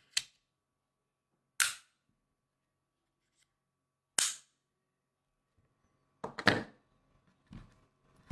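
Sharp clicks or knocks: three single ones a couple of seconds apart, then a quick run of several together about six seconds in and a softer one just after.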